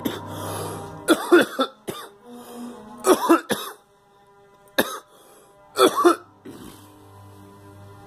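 A girl coughing in short fits: a cluster of coughs about a second in, another around three seconds, a single cough near five seconds and a double cough around six. Background music with steady held tones plays underneath.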